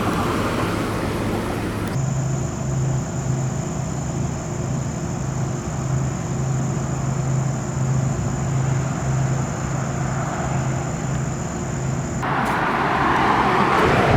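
Motor vehicle driving: steady road and engine noise with a low hum, changing abruptly about two seconds in and again near the end.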